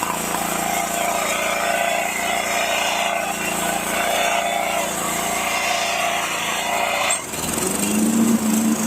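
Scag 36-inch commercial walk-behind mower's four-stroke engine running steadily, with no lifter knock: its hydraulic lifters are quiet after an oil change to 10W-30 full synthetic. The sound changes abruptly about seven seconds in, settling to a different steady note.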